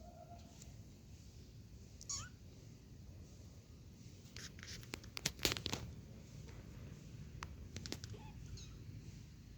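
Kittens: a faint short mew at the start, a brief high squeak about two seconds in, then a cluster of light clicks and scratches around the middle as they play.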